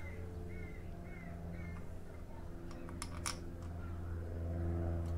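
A steady low mechanical hum that grows slightly louder toward the end, with a bird giving four short chirps in the first two seconds and a few light metallic clicks about three seconds in as the oil filter housing cover is handled.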